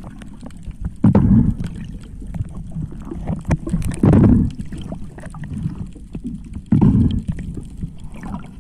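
Water heard from underwater: a steady low rumble with scattered small clicks and crackles, and three louder low surges about three seconds apart.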